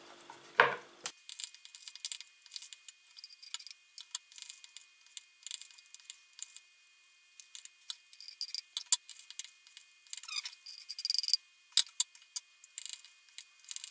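Table knife scraping minced garlic across a wooden cutting board and tapping against a glass bowl of sour cream, with a metal spoon clinking in the bowl: a string of short, light scrapes and clicks. After the first second the sound is thin, with no low end.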